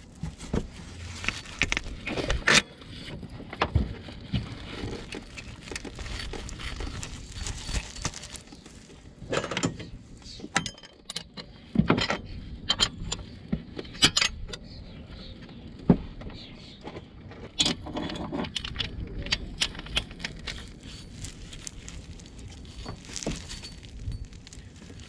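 Metal-on-metal clinks and clicks, scattered and irregular, as a new timing-belt pulley is slid onto its stud on the engine and a socket is fitted onto its bolt.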